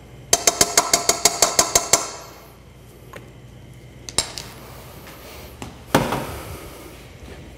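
A spoon rapped quickly against the rim of a stainless steel stand-mixer bowl, about a dozen ringing clinks in under two seconds, knocking sour cream off the spoon. A single light clink follows, and a duller knock near the end.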